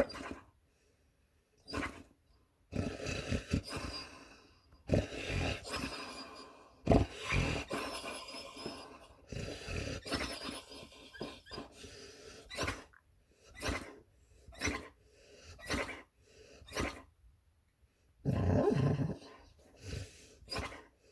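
Puppy snoring loudly in its sleep: a run of short rough snores, about one a second, with a longer, louder snore near the end.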